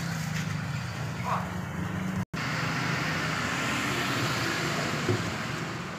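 Road traffic beside the stall: a motor vehicle engine hums steadily close by. The sound cuts out for a moment about two seconds in, then comes back as a louder rush of passing vehicles.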